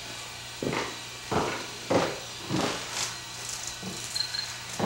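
A run of about eight thuds, roughly two a second, over a steady low hum.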